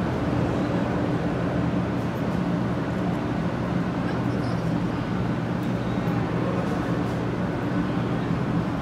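Steady low hum of a 500 Series Shinkansen standing at the platform, its onboard equipment running without the train moving, over a station hubbub with faint crowd chatter.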